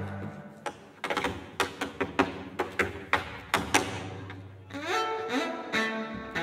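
Bowed cello playing sustained notes while tap shoes strike a wooden stage floor in an uneven, syncopated rhythm of sharp taps. About five seconds in, the cello slides upward in pitch.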